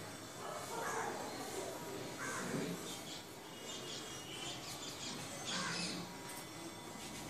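Birds calling now and then, crows cawing among them: a few short calls scattered over a low background hum.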